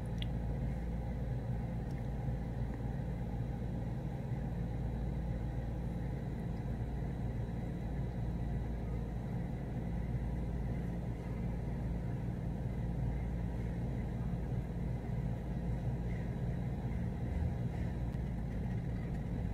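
Steady low mechanical hum and rumble, even and unchanging, with a few fixed low tones.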